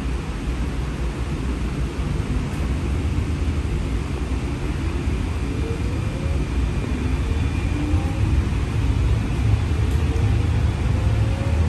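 Streetcar pulling away from a stop, heard from inside the car: a steady low rumble with a whine from the electric drive that rises in pitch as it gathers speed.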